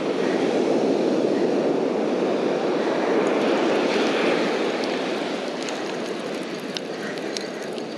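Steady rush of breaking surf and wind on the microphone, easing off slowly in the second half, with a few faint ticks as a spinning reel is cranked.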